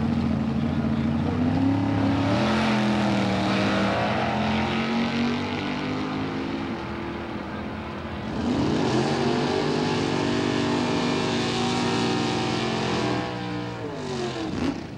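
Two drag-race cars' engines at full throttle, launching and running down the strip, their pitch climbing through the run. Near the end the pitch falls and the sound fades as they lift off far down the track.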